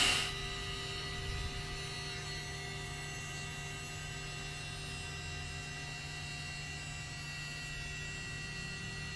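Small rechargeable electric air pump running steadily as it inflates the top section of an inflatable chair: an even motor hum with several fixed pitches that stays the same throughout.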